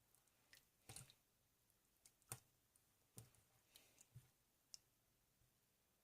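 Faint, irregular clicks and light taps, about eight to ten, with the sharpest a little over two seconds in.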